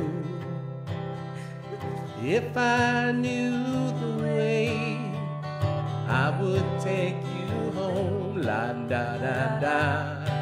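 Two acoustic guitars strummed and picked together under a woman's singing voice, which holds long wavering notes and slides quickly upward about two seconds in.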